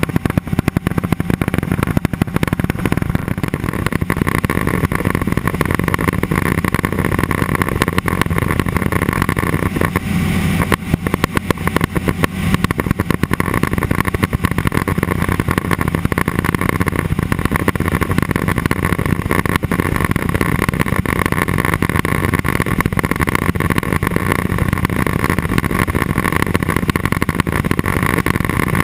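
Cessna 206 Soloy's turbine engine and propeller running steadily in flight, a constant loud drone with a low hum and a higher whine. About ten seconds in the higher whine drops away for a couple of seconds while the low hum swells, then both return.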